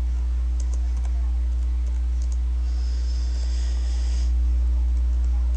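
Computer keyboard keys being typed, a few separate key clicks and a quicker run of keystrokes in the middle, over a steady low electrical hum.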